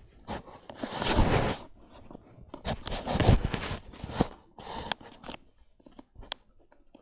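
Phone microphone being rubbed and handled against bedding: several noisy rustling and scraping bursts, with a sharp click near the end.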